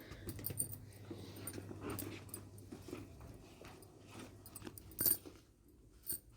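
Chana dal and urad dal frying in hot oil in a kadai: scattered light crackles and pops, with a sharper click about five seconds in and another near the end.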